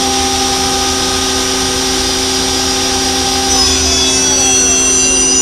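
Mori Seiki SL-150S CNC turning center running, with a steady machine whine made of several tones. About three and a half seconds in, some of the tones glide down in pitch.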